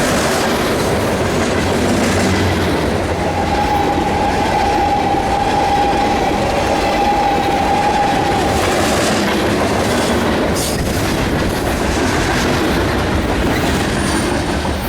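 Union Pacific freight train's cars rolling past, a steady rumble and clatter of steel wheels on the rails. From about three seconds in, a thin steady wheel squeal rides over it for about six seconds.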